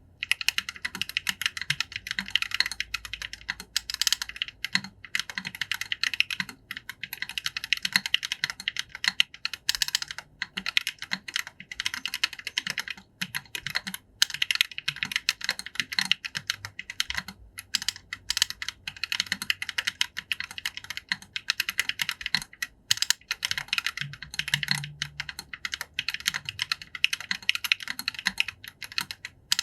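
Continuous fast typing on a Reviung41 40% mechanical keyboard with Akko Purple Lavender switches and SA-profile keycaps: a dense stream of key clacks with only brief pauses. The board is built without any padding.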